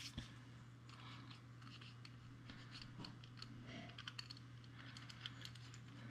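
Faint, irregular small clicks and scrapes of metal Maglite flashlight parts being handled and fitted together by hand, the LED bulb module going into the head, over a low steady hum.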